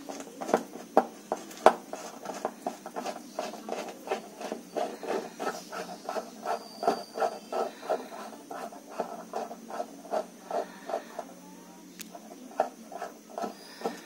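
Screwdriver turning the screw at the centre of a top-loading washing machine's plastic pulsator: a fast, even run of short clicks and scrapes, about three a second, pausing briefly near the end.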